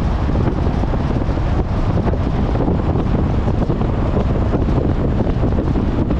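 Steady wind noise buffeting the microphone, an unbroken low rumble.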